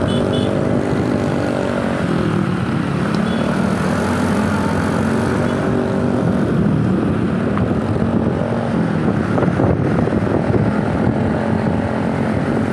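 Road traffic: heavy vehicle engines running close by, their tones rising and falling.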